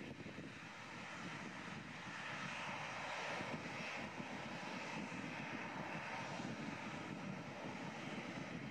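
Boeing 747-400's four jet engines at takeoff thrust as it climbs away: a steady rumble of jet noise that swells a little about two seconds in.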